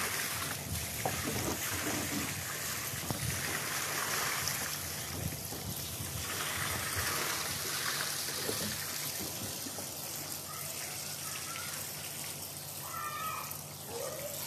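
Tap water running in a steady trickle into a plastic kayak's hull, filled to check it for leaks.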